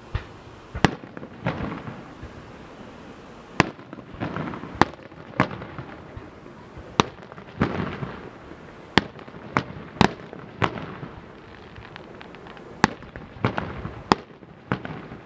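Aerial fireworks shells bursting overhead: about ten sharp bangs at irregular intervals, some trailed by crackling, with softer booms between.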